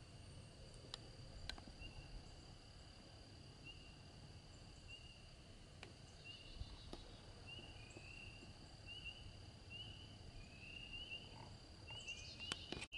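Near silence: faint outdoor ambience, a steady high whine with a run of short chirps that come more and more often, over a low rumble.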